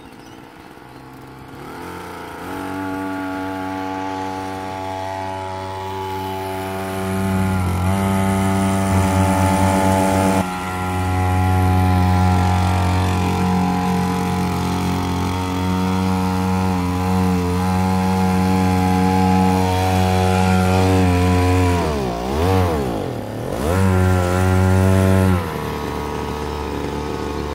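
A 2 hp two-stroke outboard motor of the whipper-snipper type, running and pushing a small dinghy. Its buzzing note builds over the first couple of seconds and then holds at steady high revs. About 22 seconds in, the revs drop and pick up again twice, then settle at a lower note near the end.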